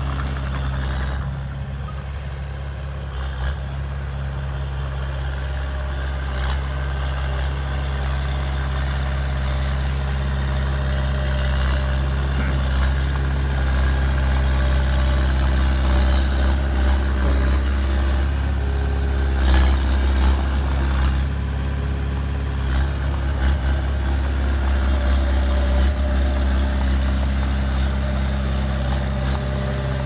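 Diesel engine of a Komatsu D20A crawler bulldozer running steadily as the machine pushes soil, with a short knock about two-thirds of the way through.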